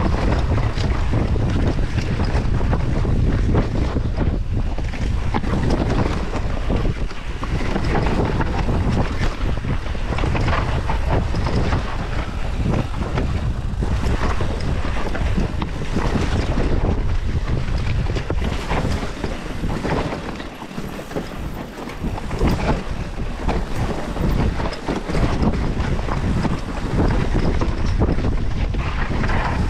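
Wind buffeting the microphone during a fast mountain-bike descent, with the bike rattling and knocking over rough ground. The rush eases briefly about two-thirds of the way through.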